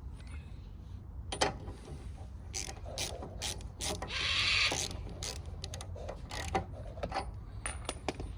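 Ratchet wrench clicking and metal tool knocks as a spark plug is screwed back into a four-stroke lawn mower engine, with irregular clicks and a longer rasp about four seconds in.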